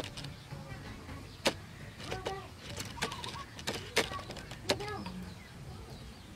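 Sharp clicks and cracks as a crispy roasted duck is cut with a knife on a metal tray and pulled apart by hand, loudest about a second and a half in and around four seconds in. A few short pitched calls come in between.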